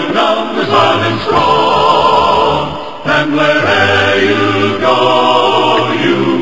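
Loud choral music with long held sung notes, heard through a phone's microphone.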